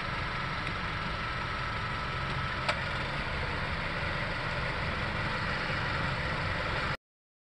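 Honda Civic running steadily, with one sharp click about two and a half seconds in. The sound cuts off abruptly about seven seconds in.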